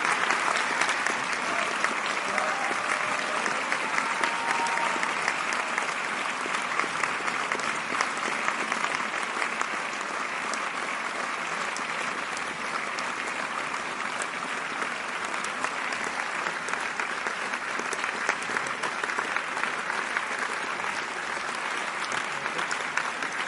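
A large audience applauding: many hands clapping in a dense, steady wash with individual sharper claps standing out, holding an even level throughout.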